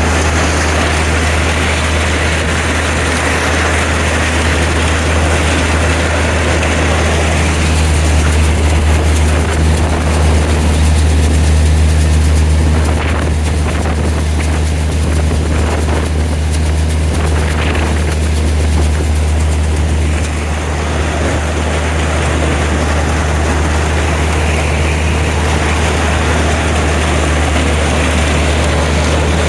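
John Deere 45 combine running steadily while harvesting corn: a constant low engine drone with the noisy clatter of the machine over it, swelling slightly about a third of the way through.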